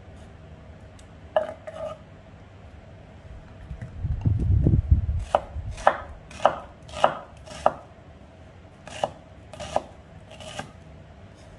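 Kitchen knife chopping a shallot on a wooden chopping board: a single knock early, a dull low bump, then a run of six quick blade strikes against the board at about two a second, followed by three slower ones.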